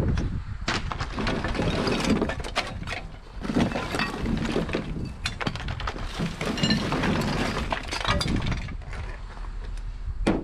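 Mixed scrap metal being pulled from a truck bed and tossed, clattering and clanking again and again, with brief metallic rings among the knocks.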